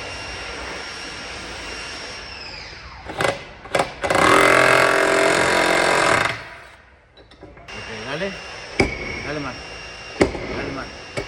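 Power grinder on auto-body sheet metal: it runs with a steady whine, then winds down. After two sharp clicks comes a loud, harsh two-second burst of grinding. Then a voice is heard with sharp knocks about every second and a half.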